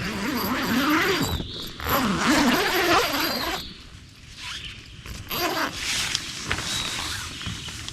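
A zipper pulled in two long, rasping strokes, the pitch wavering with the speed of the pull, followed by softer rustling and small clicks of handling.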